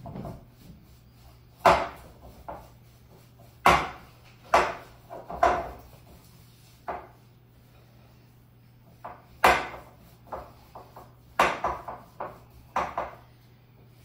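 A spoon knocking and scraping against a glass mixing bowl while margarine and sugar are creamed together by hand: about nine sharp, irregular knocks with softer stirring between them, over a faint steady hum.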